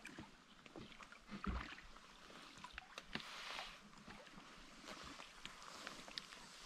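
Faint water lapping and trickling around a drift boat on a river, with a few small knocks and clicks.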